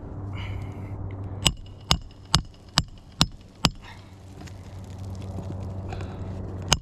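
Hammer driving a roofing nail through a shingle: six quick metallic strikes about half a second apart, each with a short ring, with another run of strikes starting at the very end.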